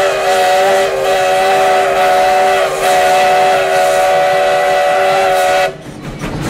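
Sierra Railway No. 3's steam whistle on the 4-6-0 locomotive, blowing one long blast that sounds several notes at once. It dips briefly twice and then cuts off suddenly about a second before the end, leaving a quieter clatter.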